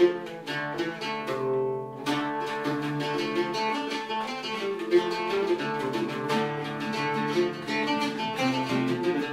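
Instrumental Irish folk music on strummed acoustic guitar and mandolin, with no singing. The high strums drop out for a brief held note about one and a half seconds in.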